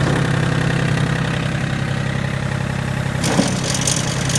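A John Deere 770 compact tractor's three-cylinder diesel engine runs steadily at idle. About three seconds in there is a short knock, and a hiss joins the engine sound.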